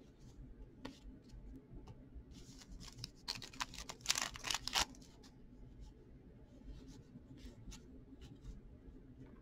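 Hockey cards being flipped through by hand: scattered soft ticks as cards slide off the stack, with a louder burst of rustling handling about three to five seconds in.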